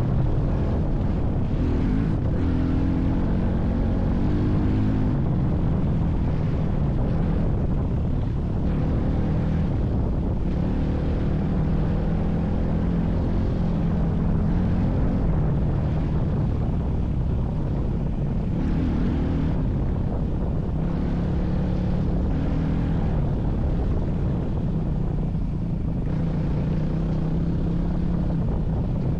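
A vehicle's engine running continuously under load, its pitch rising and falling with the throttle.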